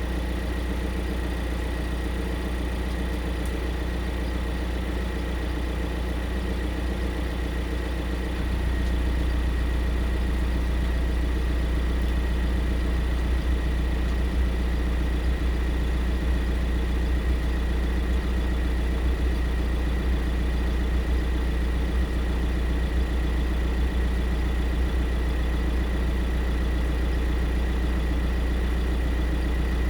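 Skoda Octavia IV running steadily at idle: a steady low hum with a thin, steady high tone above it. About eight seconds in, the low hum steps up a little in level and holds there.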